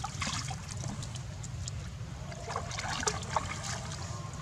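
Water splashing and trickling as young macaques swim in a shallow pool and climb out onto the stone, dripping. The splashes come in short crackly clusters in the first second and again around three seconds in, over a steady low rumble.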